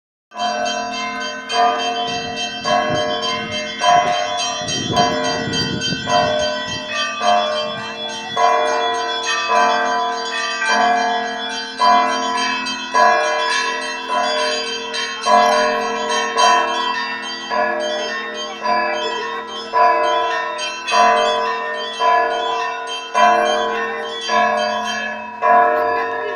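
Russian Orthodox monastery bells ringing a continuous peal: several bells of different pitch struck in a steady rhythm about once a second, their tones overlapping and ringing on between strokes.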